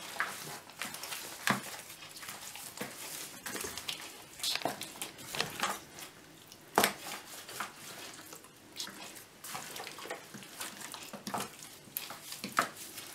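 Wet squelching and smacking of a plastic-gloved hand kneading thick yogurt-and-spice marinade into whole raw chickens in a bowl, in irregular squelches with a few sharper smacks.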